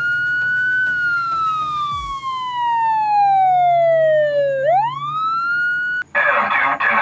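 Police car siren on a wail: it climbs to its top pitch, falls slowly over about four seconds, climbs again and cuts off sharply near the end.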